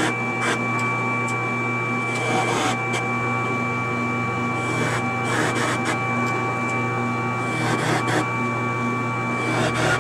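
Benchtop drill press motor running steadily with a hum and a high whine, its bit boring into a pine strip and plywood in several short bursts of cutting noise.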